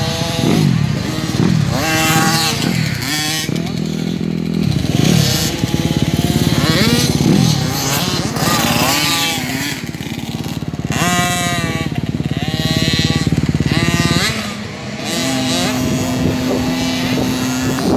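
Several small two-stroke motocross bikes racing, their engines revving up and down in repeated rising and falling whines that overlap as the bikes pass at different distances.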